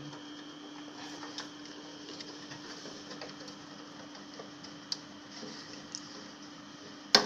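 Desktop PC running with a steady hum from its fans, over faint ticks of parts being handled. About seven seconds in comes one sharp, loud click.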